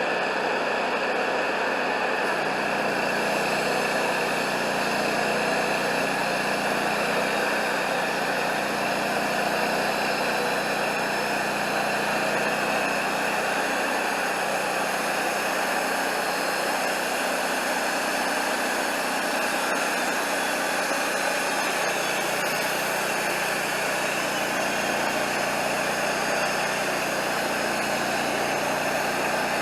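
Wood-Mizer LT40 portable band sawmill running with an even, unbroken engine noise throughout.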